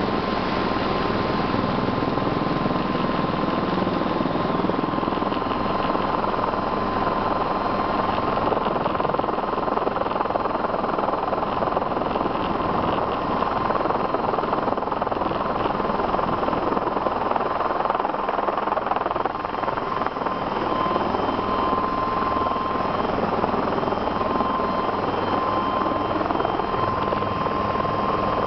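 Helicycle single-seat kit helicopter hovering: steady rotor and turbine engine noise, with a constant high whine running through it.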